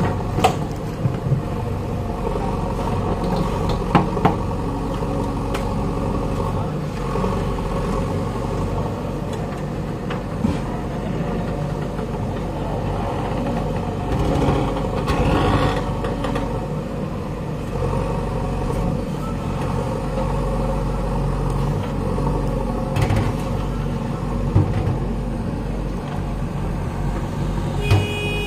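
JCB 3DX backhoe loader's diesel engine running steadily under heavy load as the machine hauls itself out of deep mud with its backhoe arm. Sharp knocks come now and then, a few seconds apart.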